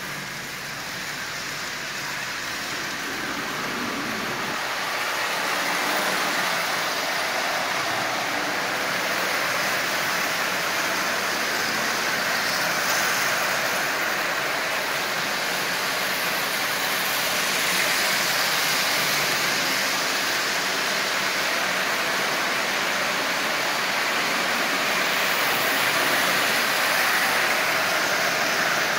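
Several Marx Commodore Vanderbilt tinplate toy locomotives running together on three-rail track: a steady mechanical whir of their electric motors and wheels on the tin rails, growing somewhat louder over the first few seconds and then holding even. The engines are running smoothly on track that has just been hardwired.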